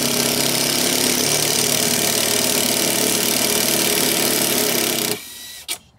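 Cordless impact driver with a T30 Torx bit running steadily for about five seconds as it loosens a golf cart's strut bolts. It stops near the end, followed by a couple of short sharp sounds.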